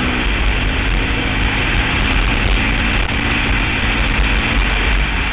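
Honda TRX700XX ATV's single-cylinder engine running steadily under way, with wind rumbling over the microphone.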